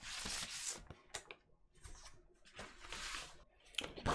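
A paper inner sleeve sliding out of a cardboard vinyl LP jacket: three rustling swishes of paper against card, with a few light taps and clicks between them.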